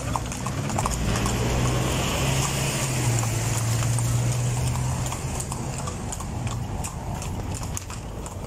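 Hooves of a pair of carriage horses clip-clopping steadily on the paved street as they pull a calèche at a walk. A steady low hum runs under the hoofbeats through roughly the first half.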